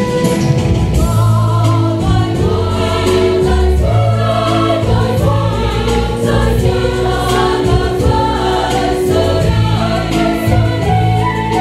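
Church choir singing a hymn in several parts, with long held notes over a steady bass.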